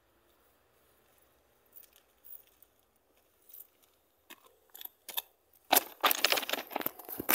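A smartphone being picked up off track ballast: a few scattered clicks, then from about six seconds in a loud run of crunching and scraping of stones and handling.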